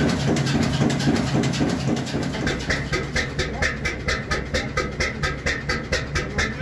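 1958 Brons two-cylinder slow-running diesel engine running. First comes a dense mechanical clatter with a steady hum from the engine room. About two seconds in, this gives way to the even, rhythmic chuff of its exhaust puffing from the stack, a few puffs a second.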